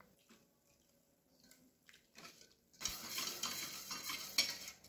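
Wire whisk stirring a thin milk and rice-flour batter in a stainless steel bowl, scraping and clinking against the metal to work out lumps. The whisking starts about three seconds in, after a near-silent stretch.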